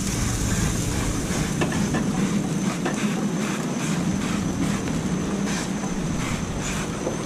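Aerosol duck-fat cooking spray hissing in repeated short bursts onto a chicken on a grill grate, over a steady low hum.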